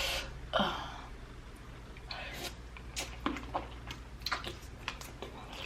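Close-up eating sounds of a sauced prawn: a short slurp at the start and another just after, then scattered small clicks and crackles of the shell being peeled.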